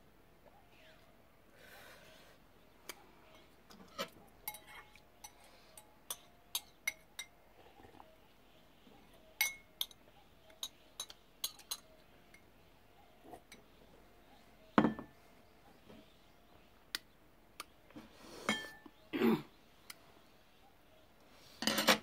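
Chopsticks clinking against a ceramic rice bowl while eating, in scattered sharp clinks, with a heavier knock about fifteen seconds in and a few louder clatters near the end.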